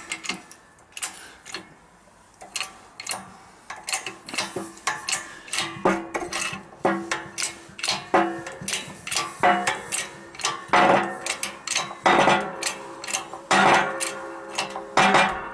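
A 20-ton shop press being pumped by hand to press a Yamaha XS650 crankshaft back together over a new con rod. It makes a steady run of sharp metallic clicks, about two or three a second, with a few louder, longer clanks in the second half.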